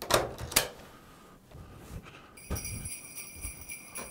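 Two sharp knocks, a door being opened, near the start, then jingle bells start ringing about halfway through and keep jingling, with a few soft low thuds beneath.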